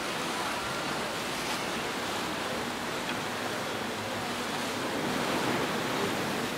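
Steady rush of water churned up by the paddle steamer Waverley as she pulls away from the pier, growing a little louder toward the end.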